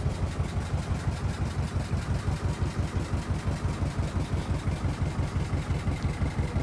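Tour boat's engine running steadily as the boat moves along the river, with a regular low throb of about five or six beats a second.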